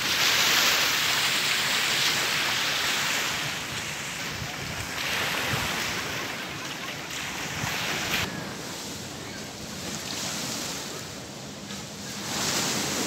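Wind and small lake waves washing against the rocky shore, an even hiss that swells every few seconds.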